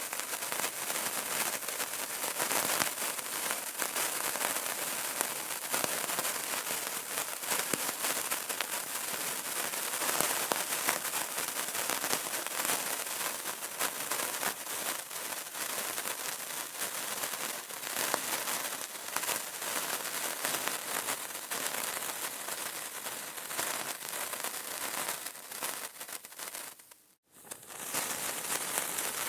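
Burning candle crackling: a dense, continuous run of small pops and snaps. It fades away almost to nothing for under a second about 27 s in, then comes back.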